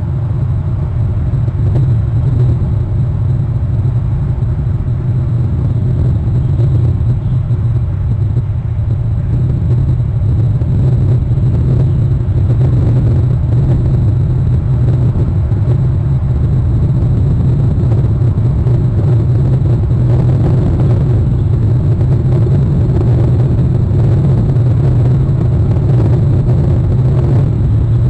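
Steady low rumble with a faint hiss above it, unchanging throughout; no calls or distinct sounds stand out.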